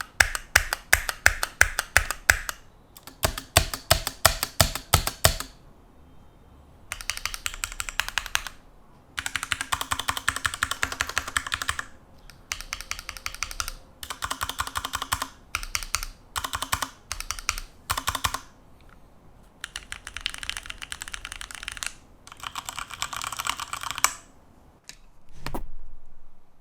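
Keychron Q2 mechanical keyboard being typed on: first a run of separate, evenly spaced keystrokes, then several bursts of fast typing with short pauses between them. A short, duller sound comes near the end.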